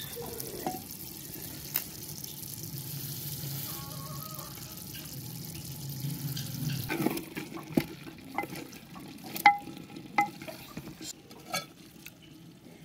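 Beef liver curry sizzling and bubbling in an open clay pot, a steady low hiss. About seven seconds in it gives way to a string of sharp clicks and scrapes as a wooden spoon scoops the curry and knocks against the clay.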